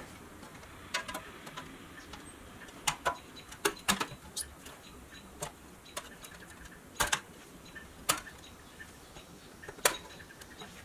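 Painted pressed-steel parts of a 1962 Tonka toy semi-trailer clicking and tapping against each other as they are fitted together by hand: about a dozen sharp, irregular clicks.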